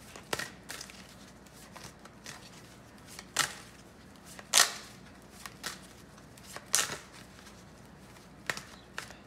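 Tarot cards being shuffled and laid out by hand on a hard countertop: scattered short, sharp card snaps and taps at irregular intervals, the loudest about four and a half seconds in.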